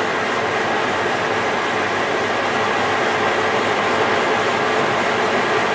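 Milling machine running steadily while a face mill at 200 RPM takes a final pass across cast-iron machine ways, a continuous machining noise with faint steady tones.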